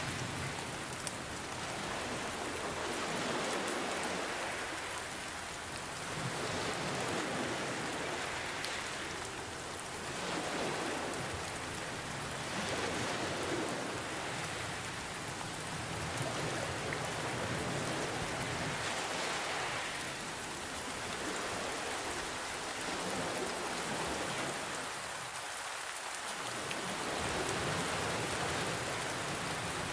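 Steady rain falling, mixed with ocean waves that swell and ebb every few seconds.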